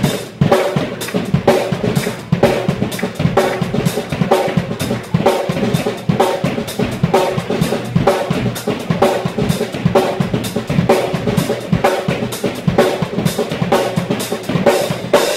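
Live band music led by a drum kit played hard: kick drum and snare keeping a steady, driving beat.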